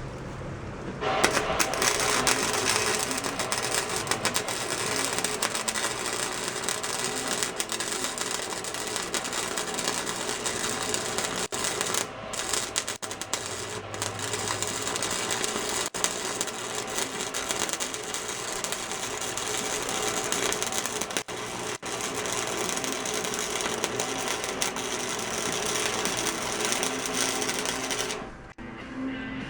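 Flux-core wire-feed welder arc crackling in one long, steady run that starts about a second in and stops shortly before the end, with a couple of brief breaks midway.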